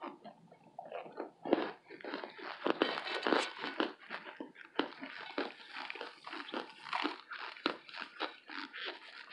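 Close-up crunching and crackling of a burnt baked cornstarch brick as pieces are broken apart by hand and chewed, a dense run of irregular crisp clicks. It is thickest and loudest from about one and a half to four and a half seconds in.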